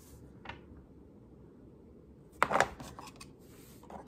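Handling of 3D-printed plastic parts during assembly of a hat fan: a few sharp clicks and knocks about two and a half seconds in, with a couple of lighter clicks after, over faint room noise.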